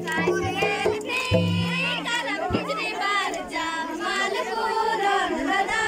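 A group of women and girls singing a Kurukh Karam song together, their voices overlapping. A low steady accompaniment under the singing stops about a second and a half in, leaving the voices alone.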